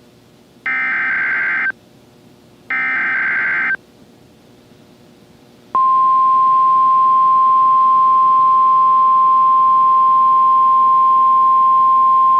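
NOAA Weather Radio Required Weekly Test: two one-second bursts of SAME digital header tones, about two seconds apart, then about six seconds in the steady 1050 Hz Weather Radio warning alarm tone starts and holds.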